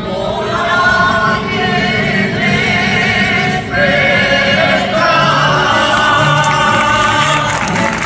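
A traditional folk group of men and women singing together in long held notes, with guitar accompaniment.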